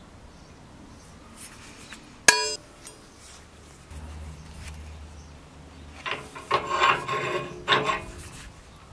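One sharp, ringing metal-on-metal strike a little over two seconds in. From about six seconds, the seized, rusted pivot of the old pincers creaks and grinds in several squealing bursts as the handles are forced apart with the pincers clamped in a bench vise.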